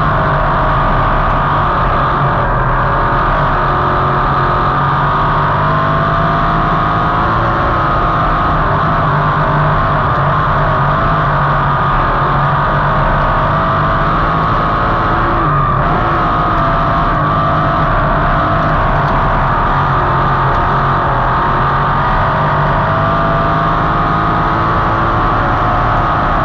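A 305 sprint car's V8 engine running hard at speed, heard from inside the cockpit: a loud, steady engine note that rises and dips slightly with the throttle.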